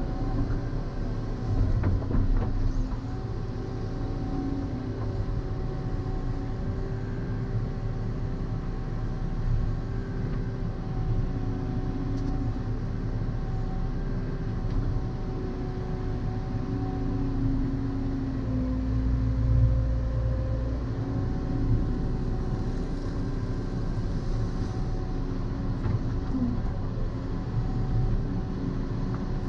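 Volvo tracked excavator's diesel engine and hydraulics working under load, heard from inside the cab as the bucket digs and the boom slews. A steady low rumble runs with a few held tones that shift in pitch as the load changes.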